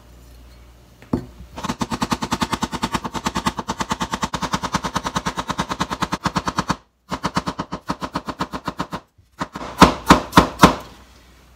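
A cucumber being thinly sliced with a knife on a cutting board: rapid, even chopping strokes, several a second. The run breaks off briefly twice and ends with a few louder strokes.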